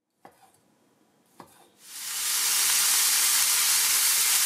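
Two knife strokes through wiener sausage against a wooden cutting board. From about two seconds in, sausage and eggplant pieces frying in a pan give a loud, steady sizzle.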